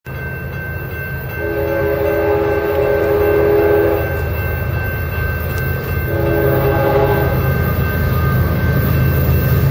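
Distant BNSF diesel locomotive air horn sounding a chord of several notes: one long blast starting about a second and a half in, then a shorter blast about six seconds in, over a steady low rumble.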